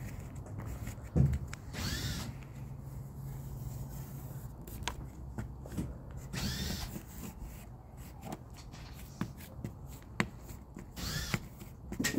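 Plastic squeegee scraping across adhesive vinyl film to smooth it onto a panel, in three separate strokes, over a steady low hum. A sharp thump comes about a second in.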